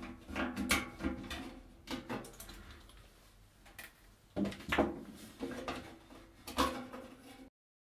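Screwdriver working a screw out of a microwave oven's sheet-metal cavity: irregular scrapes, clicks and metallic knocks in bursts, some with a brief ring. It cuts off suddenly near the end.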